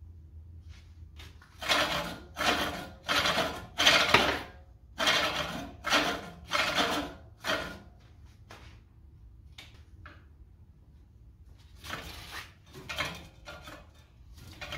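Scraping, grinding strokes from a manual reel mower's reel blades against the bed knife while the reel is worked by hand with lapping compound. About nine strokes come in an even rhythm, then a pause, then about four more near the end. The scraping means the blades still bind on the freshly adjusted bed knife.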